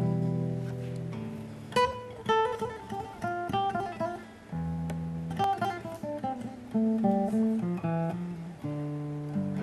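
Solo classical acoustic guitar played without singing. Held chords ring and fade, alternating with quick runs of plucked single notes.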